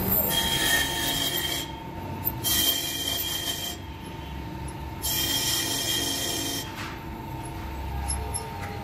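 A steel engine valve ground against a running electric grinding wheel in three separate passes, each a few seconds of high-pitched squealing, hissing grinding, over the steady hum of the wheel's motor.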